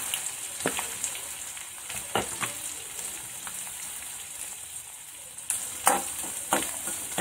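Sliced onions sizzling in hot oil in a kadai, a steady hiss. A few sharp clicks and scrapes come as the onions are pushed in and stirred, more often near the end.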